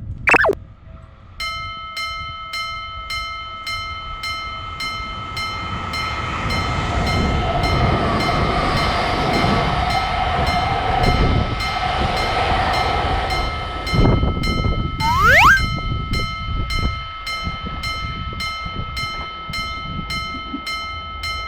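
Japanese railroad crossing alarm ringing at a steady beat of about two strikes a second, starting about a second and a half in, while a train passes: its rumble swells to a peak in the middle and fades away a few seconds before the end. A short rising cartoon-style glide sounds about 15 seconds in.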